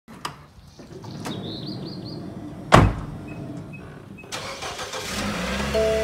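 Minivan doors being shut: a few clicks, then one loud door slam just under three seconds in, followed by several short beeps. The engine then runs with a low rumble.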